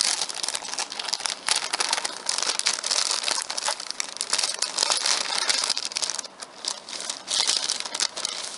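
Paper and plastic packaging crinkling and rustling as it is handled, a dense run of small crackles. It eases off for about a second roughly six seconds in, then picks up again.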